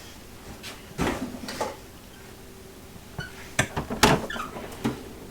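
Power tools being handled and set down on a hard surface: a few short knocks and clatters about a second in, then a busier run of knocks from about three and a half to five seconds.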